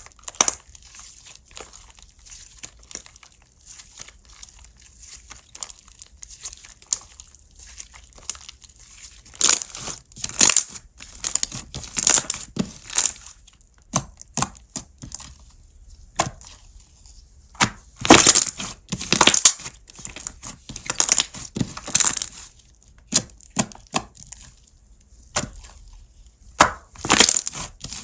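Slime being squeezed, stretched and pressed by hand: irregular crackly pops and sticky snaps, some sharp and loud, coming thickest through the middle.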